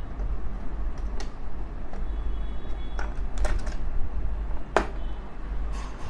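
A handful of short clicks and knocks from steel electric rim locks being handled and one set down on a table, the sharpest knock about three-quarters of the way through, over a steady low rumble.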